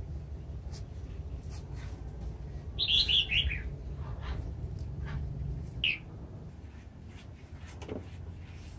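Small birds chirping: a short run of chirps about three seconds in and a single chirp about six seconds in, over a low steady hum.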